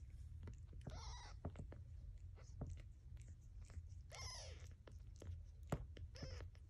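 Newborn kitten giving three short, high, thin mews while the mother cat licks it clean, her tongue making small wet clicks throughout. A low steady hum lies underneath.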